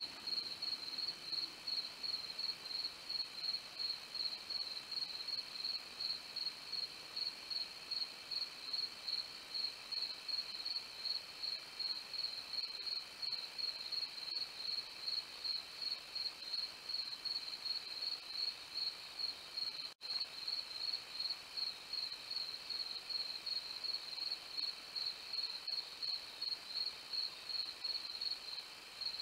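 Crickets chirping in an even rhythm, about three chirps a second, over a fainter steady insect trill. The sound drops out for a moment about two-thirds of the way through.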